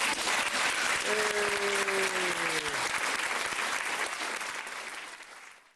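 Audience applauding at the end of a sung performance, with one voice calling out briefly over it; the applause fades away near the end.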